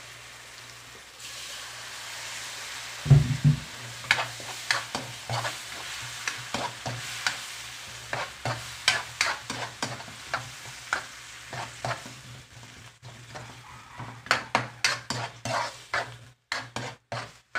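Metal spoon stirring tomatoes into fried onions, garlic and ginger in a metal wok, clinking and scraping against the pan about twice a second and faster near the end, over a steady sizzle of frying. A single thump about three seconds in.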